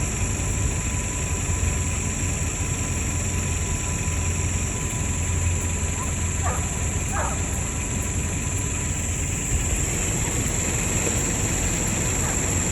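Deer hounds giving two short, faint bawls in the distance, about six and seven seconds in, over a steady low rumble and a steady high hiss.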